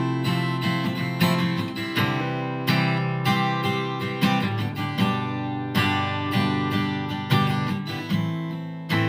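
Acoustic guitar strumming chords in an instrumental passage with no singing.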